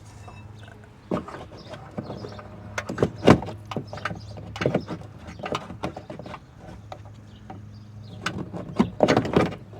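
Clicks, clanks and rattles of metal brake parts being handled and moved, loudest a little after three seconds in and again near the end, over a steady low hum.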